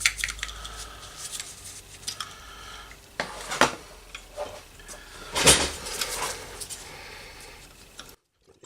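Light metallic clinks and taps of screws and small metal parts being handled and fitted on an airbrush compressor's casing, with two louder knocks about three and a half and five and a half seconds in. The sound cuts off abruptly near the end.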